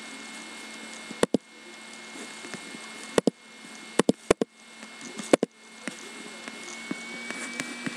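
Sharp clicks of a computer mouse, mostly in quick pairs like double-clicks, about five times spread over several seconds, over a faint steady hum.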